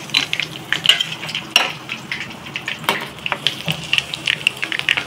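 Mutton-mince gola kababs sizzling and crackling in hot oil in a kadhai as they are lifted out on a slotted metal spoon, with a few sharper clicks of the spoon against the pan.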